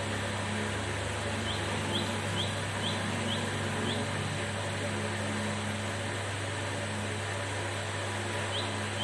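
Steady machine hum and hiss, with short high rising chirps repeating about twice a second for a couple of seconds, and again near the end.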